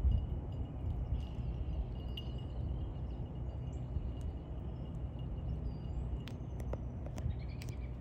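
Outdoor field ambience: a steady low rumble with faint bird chirps, and near the end a few light, quick jingles of a running dog's collar bell.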